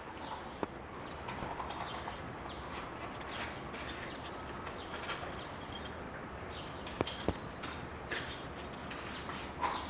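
A bird chirping a short, high, falling note over and over, about once every second and a half, over steady background noise, with a few sharp clicks.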